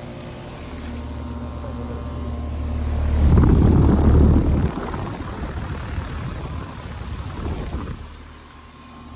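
Outdoor heat pump condensing unit running: a steady low hum with the rush of its fan, which swells loud for about a second and a half midway, drops back sharply, and fades near the end.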